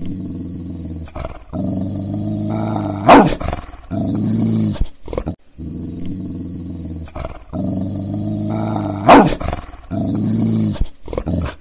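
A dog growling deep and low, broken by short pauses, with a loud sharp snarl about three seconds in. The same passage then plays again, with its loud snarl about nine seconds in.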